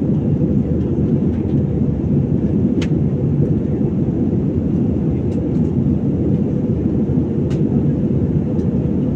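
Airliner cabin noise during the climb after take-off: a steady low rumble of jet engines and rushing air, with a couple of faint ticks.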